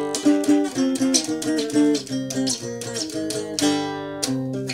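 Three-string guitar played solo: a quick run of plucked notes and chords, with one chord left ringing out and fading about three and a half seconds in.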